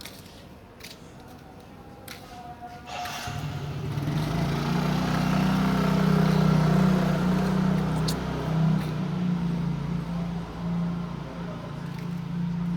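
A motor or engine comes in about three seconds in with a steady low hum and keeps running, easing off slightly toward the end.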